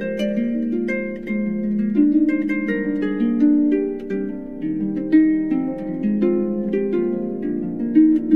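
Instrumental music of plucked strings: a flowing run of notes, each starting sharply and ringing on over the next.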